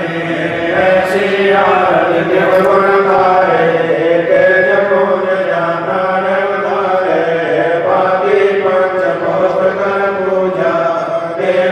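Devotional aarti chanting: sung lines in long, held, gliding phrases over a steady low drone.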